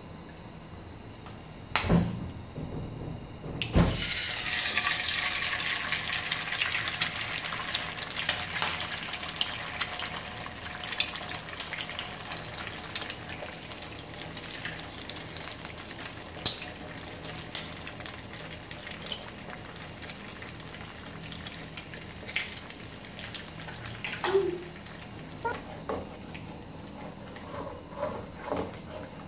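Egg frying in hot oil in an aluminium kadai: two sharp knocks as the egg goes in, about two and four seconds in, then a loud sizzle with spitting crackles that slowly dies down. Near the end, a wooden spatula scrapes and clicks against the pan as the egg is scrambled.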